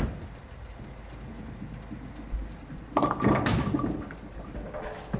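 A sharp knock, then a clatter of knocks and handling noise about three seconds in, and another knock near the end.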